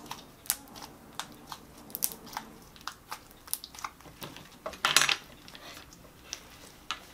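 Slime being kneaded and squeezed by hand, making irregular small wet clicks and pops, with a louder squelch about five seconds in as it is pressed down on the board.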